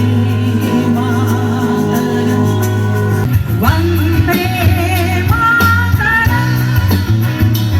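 Background music: a song with guitar and a steady bass, a singing voice coming in about halfway through.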